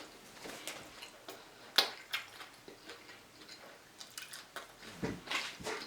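Mouth sounds of eating smoked ribs: chewing with scattered small wet clicks and lip smacks, and a louder cluster of smacks near the end.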